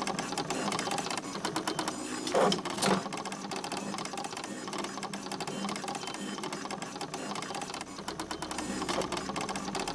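Typewriter clattering with rapid keystrokes, one quick click after another. About two and a half seconds in there is a brief sweep up and down in pitch with a sharp stroke, the loudest moment.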